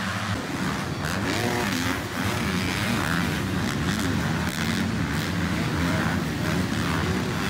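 Several motocross bikes racing around the track at once, their engines revving up and down through the gears in overlapping rises and falls.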